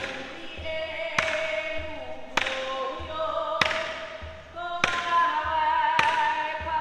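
Hawaiian song for hula: voices singing a melody, with a sharp percussive strike about every 1.2 seconds keeping the beat.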